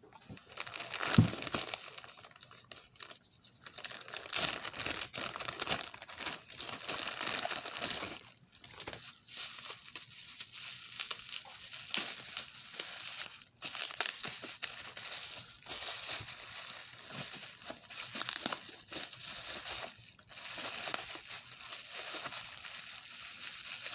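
Plastic bag and wrapping crinkling and rustling in irregular handfuls as it is pulled open and unwrapped by hand, loudest about a second in.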